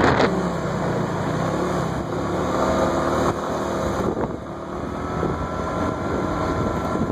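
Motor scooter engine running under way, with wind rushing over the microphone; the engine note holds fairly steady and eases slightly about four seconds in.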